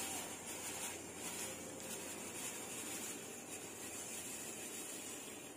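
Faint steady hiss of water boiling in a kadai as roasted vermicelli is slid in from a plate, fading near the end.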